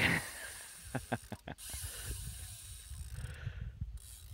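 A hooked northern pike splashes at the surface about the moment the sound starts, then the spinning reel's drag clicks and buzzes as the fish pulls line and dives.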